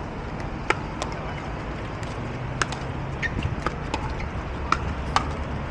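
Pickleball rally: paddles striking the hollow plastic ball in a series of sharp pops at uneven spacing, some louder than others, over a steady low rumble.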